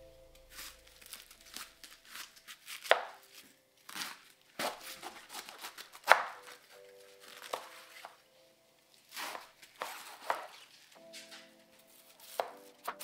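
Kitchen knife cutting napa cabbage on Parker Asahi synthetic rubber cutting boards: irregular strokes of the blade crunching through the leaves and tapping the board, the two loudest about three and six seconds in.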